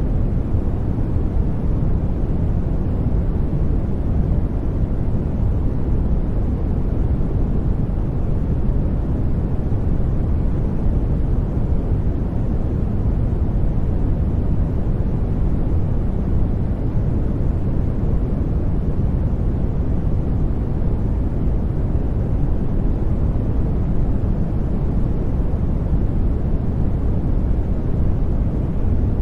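Steady sleep noise track, a deep, even hiss that is heavy in the low end and muffled on top, with no changes or events.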